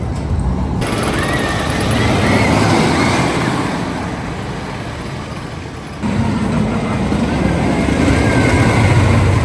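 Wicker Man wooden roller coaster train running on its track: a loud rumbling roar with rushing noise, with high wavering cries over it. The sound changes abruptly about a second in and again around six seconds in.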